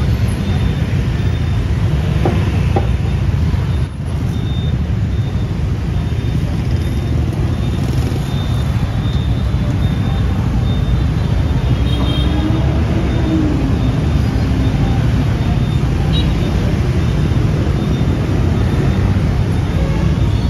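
Steady street traffic noise: a continuous hum of passing vehicles on a busy city road.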